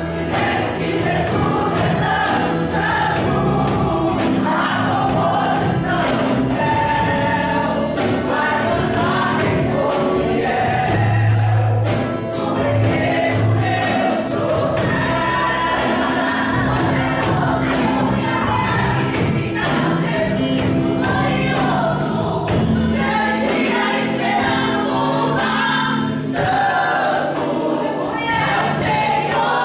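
Live gospel music: a woman singing into a microphone together with a group of voices, over accompaniment with a steady beat.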